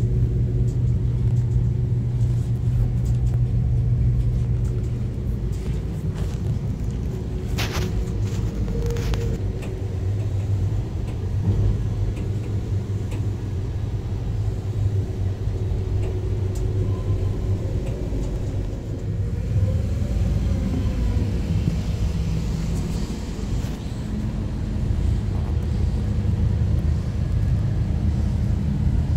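VIA Rail's Canadian passenger train running, a steady low rumble heard on board, with a couple of sharp clicks about eight and nine seconds in.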